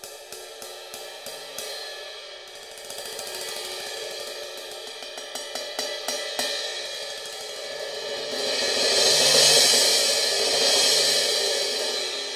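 Basileia Heritage crash cymbal played on its own: a run of light, quick strikes that build up into a loud, shimmering wash about nine seconds in, then ease off a little.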